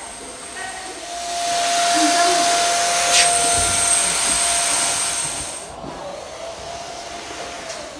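A small electric air blower running: a loud hiss over a steady whine. It swells about a second in, a click comes near the middle, and it falls away sharply about two seconds before the end.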